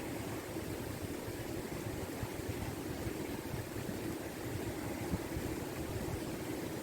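Steady rush of a river in flood, water pouring and churning without a break.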